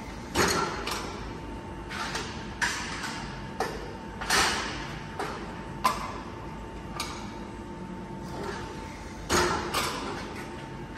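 Steel reinforcing mesh clanking and rattling against the steel bed of a mesh bending machine as it is handled. Irregular sharp metallic hits with short ringing, roughly one every half second to two seconds, over a faint steady high tone.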